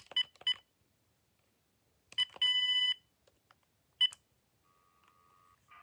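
Uniden EXP7900 cordless phone beeping as its keypad buttons are pressed. There are three quick beeps, then about two seconds in a short beep followed by a longer beep of about half a second, and one more short beep about four seconds in.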